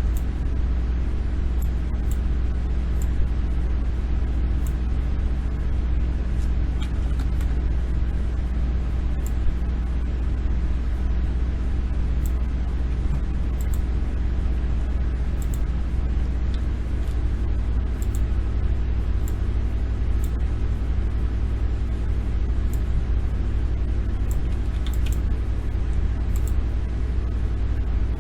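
Steady low hum and rumble of background noise, with faint sharp clicks scattered through it.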